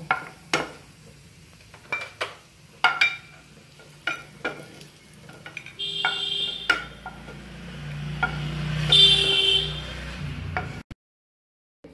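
Wooden spatula knocking and scraping against a nonstick frying pan while cashews sizzle in hot ghee, the nuts now roasted and being lifted out. The sizzle grows louder in the second half, then the sound cuts off abruptly about a second before the end.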